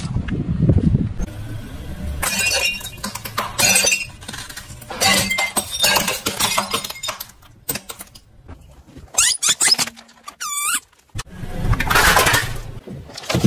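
A car tyre crushing a string of objects under its weight: a series of separate crunches, cracks and snaps of brittle ceramic and plastic breaking, with a short squeak about three quarters of the way through.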